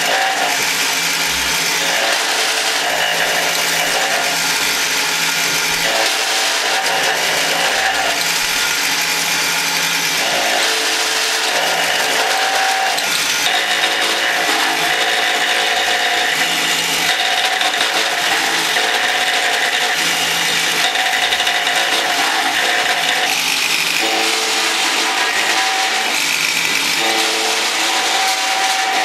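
Electric slot-mortising machine running steadily, its bit cutting a slot into a clamped hardwood block, with a high hiss over a motor tone that shifts every few seconds as the cut is fed.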